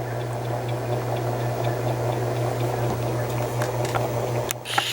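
Antique cast iron ceiling fan motor running with a steady electrical hum and a faint regular tick about four times a second. A sharp click near the end.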